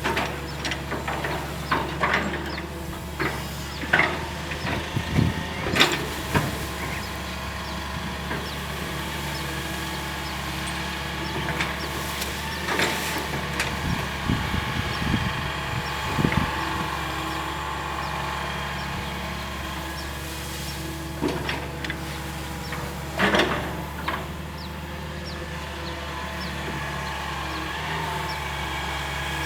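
Hitachi EX220-1 long-reach excavator's diesel engine running steadily. Irregular sharp knocks and cracks come in clusters near the start and again about two-thirds of the way through.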